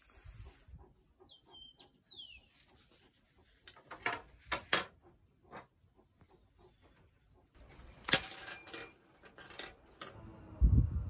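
Aluminum rods knocking on a wooden slat table as they are handled: a few light knocks about four seconds in, then a sharp clank with a bright metallic ring about eight seconds in, and a dull thump near the end.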